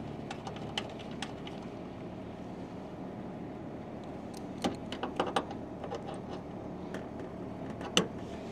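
Small metallic clicks and taps as a brass service-port cap is screwed back onto an air-conditioner's service valve by hand: a couple about a second in, a cluster midway, and the sharpest one near the end, over a steady low hum.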